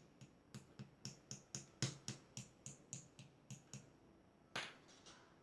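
A quick, even run of light clicks or taps, about four a second, that stops after nearly four seconds, followed by one louder knock near the end.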